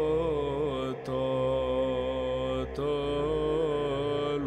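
Orthodox church chant in Romanian, the singing drawn out in a long melisma over a steady held drone, the style of Byzantine chant with its ison. The line breaks off briefly twice.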